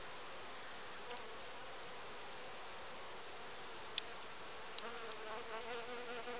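Honeybees buzzing steadily over an open hive, with one sharp click about four seconds in. A nearer, wavering buzz, as of a single bee close by, comes in near the end.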